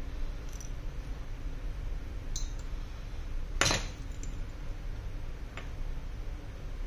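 A precision screwdriver and small metal tools clinking on a phone-repair bench: a few light clicks and one sharper metallic clink a little past halfway, over a steady low hum.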